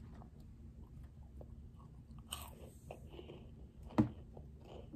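A child chewing and crunching a mouthful of Kinder Joy cream with its crispy wafer balls, with small crackles throughout and a sharp click about four seconds in.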